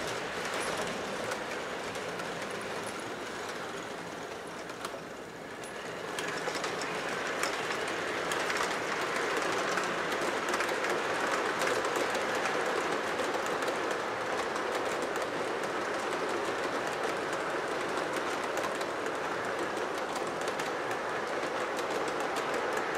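O gauge three-rail model freight train rolling past on the track: a steady rumble of metal wheels with light clicking over the rail joints. It gets louder from about six seconds in as the boxcars pass close by.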